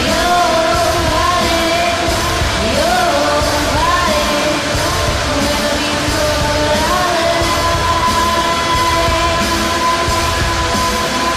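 Rock music with a singing voice that slides between notes and then holds one long note through the second half.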